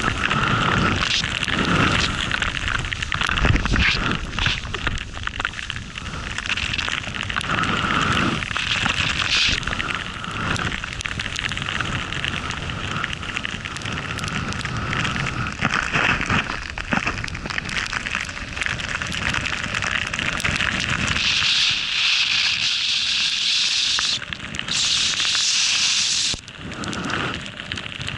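Continuous rushing hiss and crackle of riding fast through deep powder snow, with wind buffeting the microphone. Twice near the end the sound turns to a brighter, sharper hiss for a couple of seconds.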